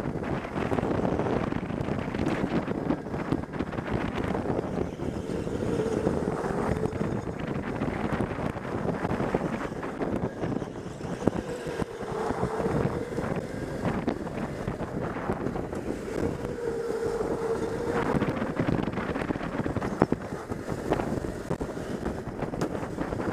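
Wind rushing over the microphone of a camera on an electric go-kart at speed, over the kart's running noise. A faint tone bends up and down three times.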